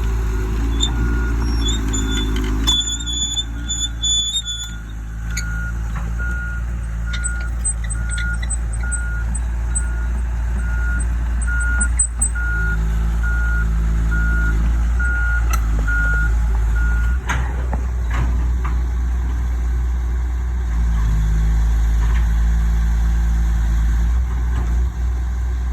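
Cat 315 LC tracked excavator's diesel engine running steadily as the machine travels over backfilled dirt to pack it down. Its travel alarm beeps at an even pace, about one beep a second, and stops about two-thirds of the way through.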